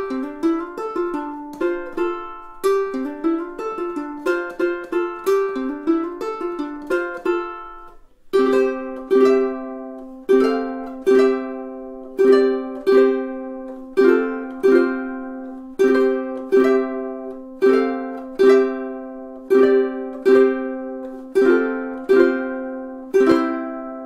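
Baton Rouge V2-T tenor ukulele played solo: quick fingerpicked notes for about the first eight seconds, then slow strummed chords, a little more than one a second, with the last chord left to ring out.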